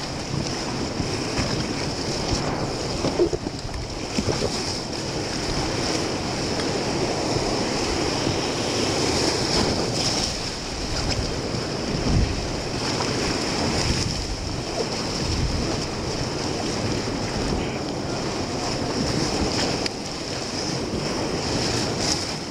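Whitewater of a high-water river rapid rushing and splashing around a paddle raft, steady throughout, with a couple of dull thumps about three seconds and twelve seconds in.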